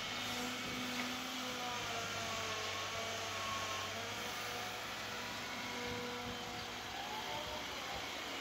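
Hydraulic excavator working: a steady diesel engine drone under load with faint whining from the hydraulics that drifts up and down in pitch as the bucket digs and the arm moves.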